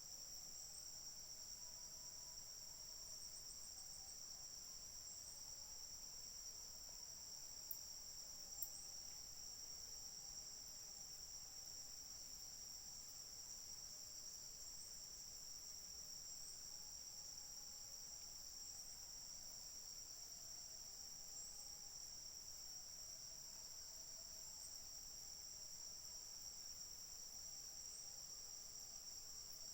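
Steady high-pitched drone of insects chirring, with two faint clicks about eight seconds in.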